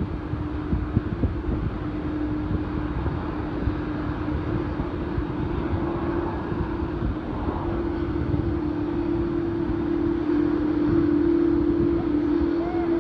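Large jet aircraft's engines droning steadily across the airfield, growing a little louder near the end, with wind buffeting the microphone.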